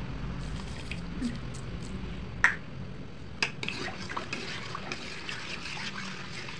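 Spatula stirring a liquid coconut-milk mixture in a metal pot: liquid sloshing with many small clicks of the spatula against the pot, beginning about halfway through. A single sharp knock about two and a half seconds in is the loudest sound.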